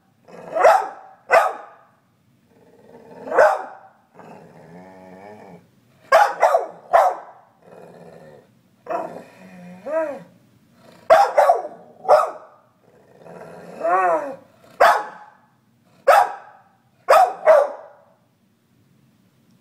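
Staffordshire bull terrier demand-barking: about a dozen sharp barks, some in quick pairs. Between them come longer grumbling vocal sounds with a wavering, warbling pitch. The vocalizing stops near the end.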